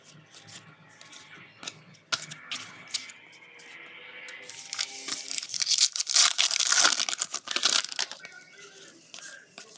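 Foil trading card pack wrapper being crinkled and torn open, a dense crackling rustle that is loudest in the middle, with cards handled between. Faint background music runs underneath.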